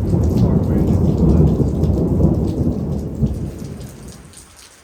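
A thunderclap rumbling and slowly fading away over about four seconds, with rain falling.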